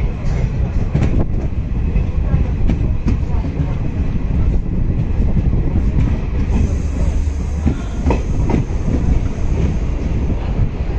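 Indian Railways passenger coach running on the track, heard from its open window: a steady low rumble of wheels on rails with frequent clicks over the rail joints. A faint high hiss joins about six and a half seconds in.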